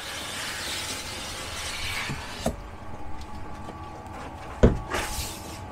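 Large cardboard box lid being slid off its base, a dry scraping rustle for about two and a half seconds, followed by a sharp knock and, near the end, a dull thump as the box is handled.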